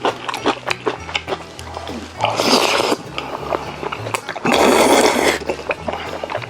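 Close-miked eating sounds: chewing and rapid small clicks, with two louder noisy bursts of about a second each midway through, over background music with a stepping bass line.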